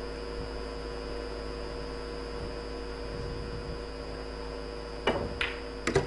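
Steady electrical mains hum, then about five seconds in a quick run of sharp pool-ball clicks and knocks: the cue striking the cue ball, the cue ball hitting the object ball, and the ball dropping into the pocket.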